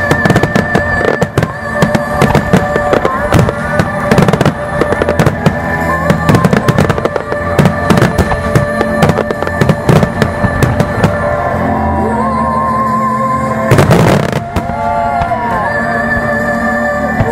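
A starmine fireworks display: dense, rapid shell bursts and crackle over music played on loudspeakers. The bursts thin out about two-thirds of the way in, and one last loud volley comes near the end.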